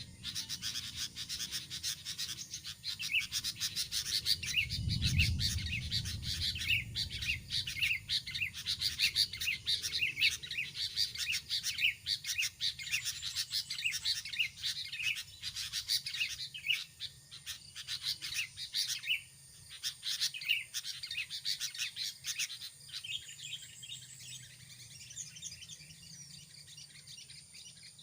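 Small birds calling in rapid, repeated high chirps, thinning out near the end, with a low rumble about five seconds in.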